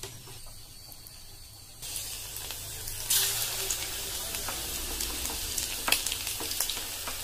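Pieces of fish coated in a rice-flour, cornflour and egg batter deep-frying in hot oil: the sizzling starts about two seconds in, grows louder about a second later, then goes on as a steady hiss with scattered crackles.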